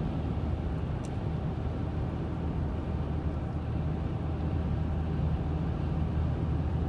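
Steady low rumble of engine and tyre noise heard from inside a vehicle's cabin while driving at highway speed on a slushy, snow-covered road.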